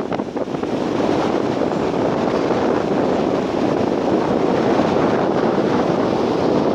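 Strong wind blowing hard across the microphone: a loud, steady rushing noise.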